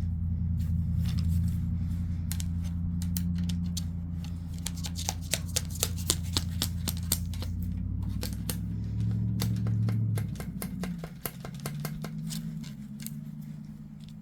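Many small sharp clicks and taps, densest in the middle, over a steady low hum.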